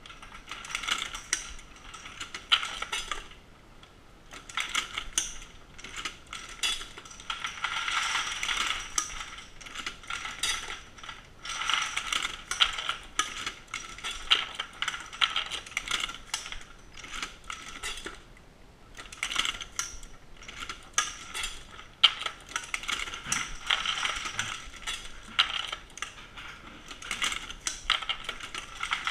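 Dillon SL900 shotgun-shell reloading press being cycled: repeated sharp metallic clicks, clacks and rattles from its mechanism as shells are loaded, in runs with short lulls.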